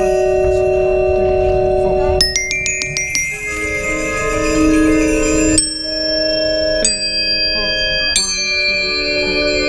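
Indoor drumline front-ensemble music: close-up glockenspiel and xylophone notes struck with mallets over sustained chords. A quick run of ringing high notes comes about two seconds in, and three bright accented strikes follow in the second half.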